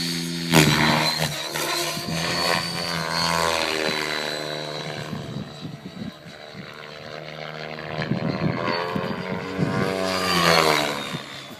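Electric RC helicopter's rotor and motor buzzing, its pitch rising and falling twice as it makes fast passes, over a thin high whine. A sudden loud thump comes just after the start.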